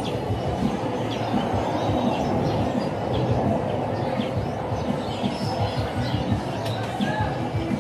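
Small birds chirping again and again over a steady low rumbling noise.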